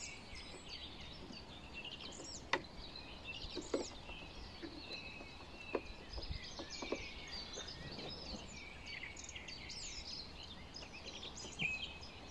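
Songbirds chirping and singing throughout, with a few sharp clicks from the cordless lawn mower's handle as it is handled.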